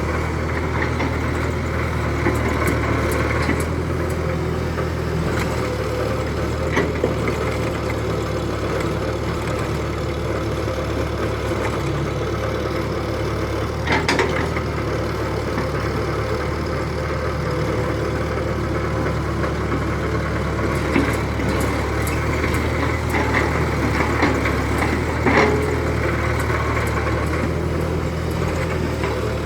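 Radio-controlled excavator and dump truck at work: a steady low engine-like hum, with a few short clicks and scrapes, the clearest about halfway through and again near the end.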